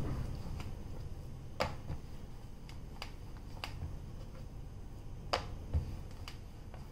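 Hands stretching and pressing parotta dough on a plastic board, giving a scatter of sharp clicks and taps, the two loudest about a second and a half in and just past five seconds, over a low steady hum.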